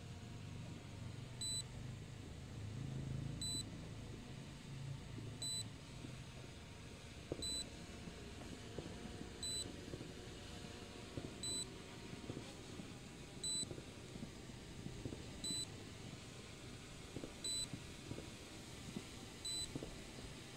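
Short high electronic beep repeating evenly every two seconds, the drone controller's alert while the SJRC F11s 4K Pro lands in automatic return-home, over a faint low rumble.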